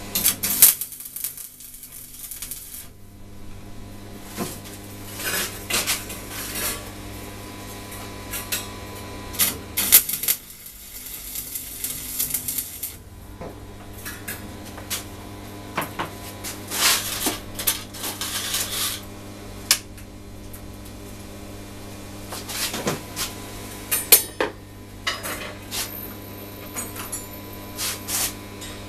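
Electric arc welding on steel rod: several crackling, sputtering bursts of one to three seconds each as joints of the frame are welded. Between them come a few sharp metal clinks, over a steady electrical hum from the welder.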